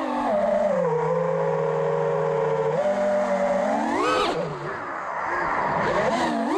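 FPV quadcopter's brushless motors whining with the throttle: the pitch holds low and steady for a couple of seconds, shoots up in a sharp punch about four seconds in and falls back, then climbs again near the end.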